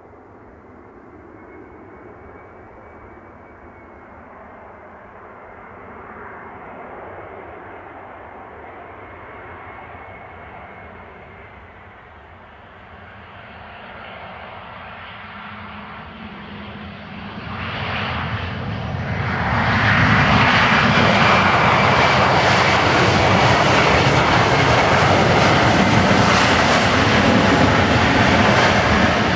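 Airbus A320-200's CFM56 turbofan engines on landing approach, a steady engine noise with a thin whine that slowly grows louder as the jet nears. About two-thirds of the way through, after touchdown on the wet runway, the engines spool up sharply into loud reverse thrust, which holds steady to the end.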